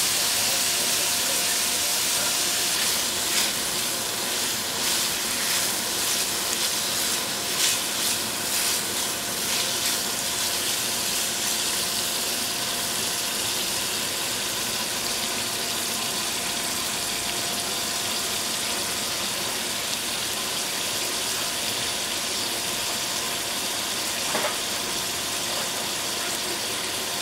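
Thin-sliced beef and garlic sizzling in a hot wok over a gas flame, a steady frying hiss. A wooden utensil clacks and scrapes against the pan during the first third, with one more tap near the end, over a faint steady hum.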